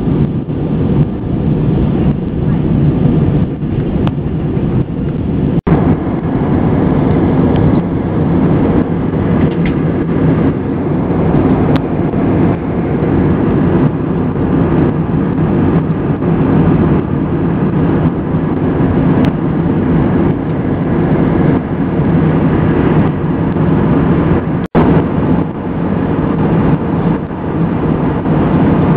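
Airbus A320 cabin noise in flight: the steady roar of the engines and rushing air heard from a window seat over the wing, with a steady low drone underneath. The sound cuts out for an instant twice.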